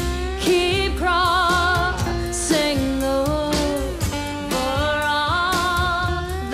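Live band music: a woman singing long held notes with vibrato over acoustic guitar, upright bass and drums.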